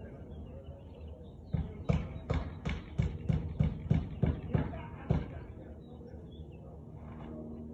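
Husky barking, a quick run of about eleven short barks at roughly three a second that stops abruptly partway through.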